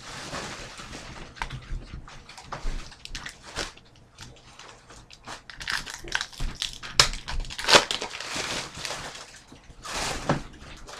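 Trading-card pack wrapper crinkling and cards being handled, sliding and tapping together: an uneven run of rustles and small clicks, loudest about seven to eight seconds in.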